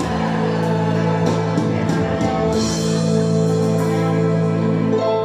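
Choir singing with instrumental accompaniment, holding long sustained chords that change near the start and again near the end.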